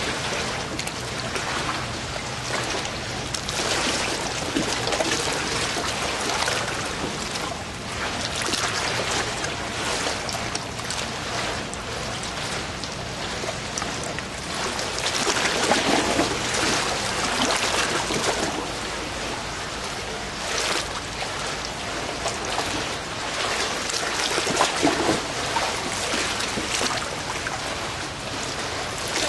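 Moving water trickling and splashing steadily, swelling a little louder now and then.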